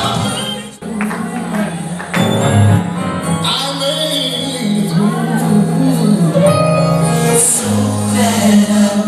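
Live gospel band music: sustained keyboard and bass chords, with voices singing over them in places.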